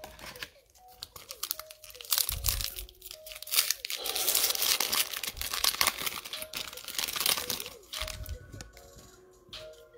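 A foil Panini Prizm trading-card pack wrapper being torn open and crinkled in the hands. The crackling starts about two seconds in, is loudest in the middle, and dies down near the end.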